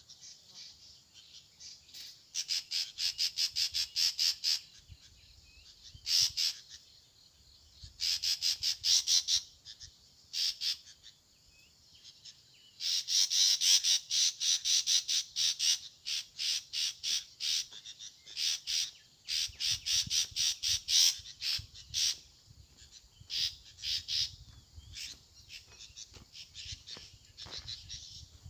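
A bird's rapid, high-pitched chattering calls, coming in repeated bursts of one to two seconds with short pauses between.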